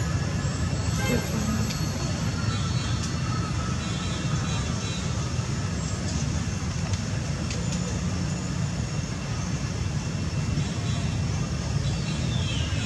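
Steady low rumbling background noise outdoors, with a few faint, short, high-pitched calls, one falling in pitch near the end.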